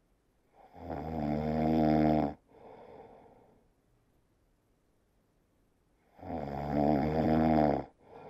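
Sleeping kitten snoring: two long, loud snores about five seconds apart, each followed by a softer, shorter breath.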